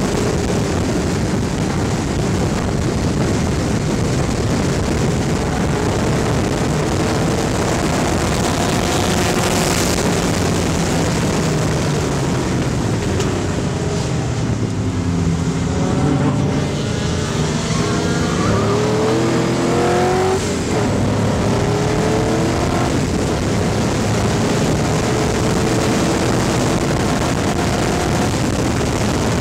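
Race car's 5.3-litre GM LS V8 (LM7) running hard under heavy wind rush at the roof. About halfway through, the engine note falls as the car slows for a corner. It then climbs again through the gears, with a break at a shift about two-thirds of the way in.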